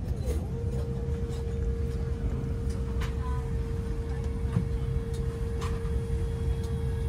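Electric motor of an airliner business-class seat whirring steadily as the leg rest is raised, starting about half a second in, over a low steady rumble.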